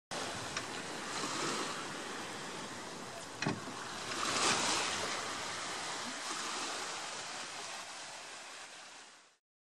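Small sea waves washing and lapping around a floating plastic dock, swelling about four and a half seconds in, with a brief knock a second before that. The sound cuts off suddenly near the end.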